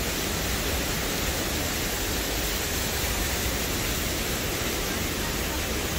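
Steady rush of fast-flowing water, an even noise that does not change.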